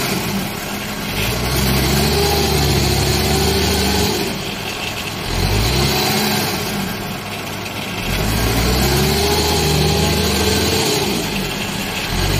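Engines of a rice combine harvester stuck in deep sticky mud and the tracked machine pulling it out, revving hard under heavy load in three long surges, the pitch climbing and sagging and easing off between pulls.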